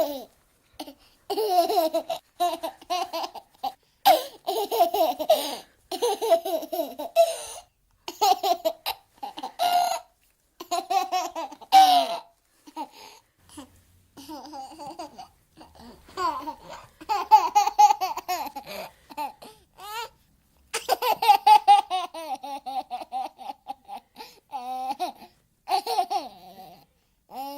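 Baby laughing in repeated runs of short, high-pitched bursts, with brief pauses and some babbling between fits of laughter.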